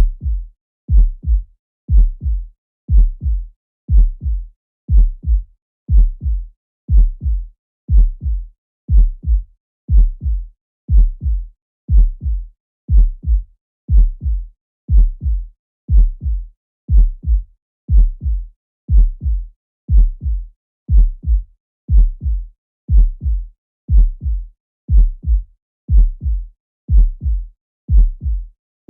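Heart sounds: a steady lub-dub heartbeat of about one beat a second, each beat a pair of low thumps close together, with silence between beats.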